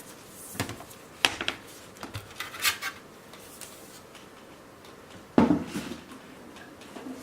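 Hard clicks, a short rattle and knocks from a MacBook Air and tools being handled on a workbench, the loudest a sharp knock about five and a half seconds in.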